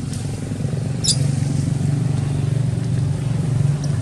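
A motor vehicle engine running steadily with a low hum. A short high chirp sounds once, about a second in.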